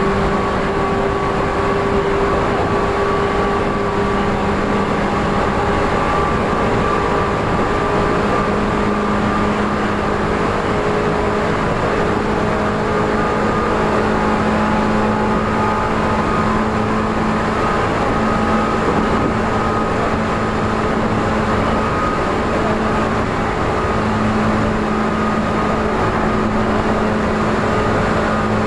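Tokyu 8500 series electric train running at speed, its traction motors and gears giving a loud whine of several steady tones that slowly rise in pitch, over continuous wheel-and-rail rumble.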